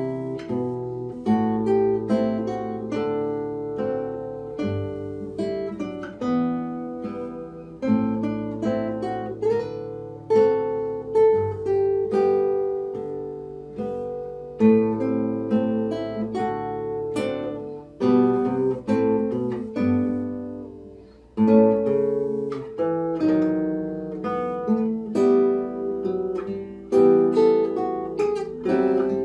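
Two nylon-string classical guitars playing a fingerpicked duet, plucked notes ringing together, with a short break between phrases about three-quarters of the way through.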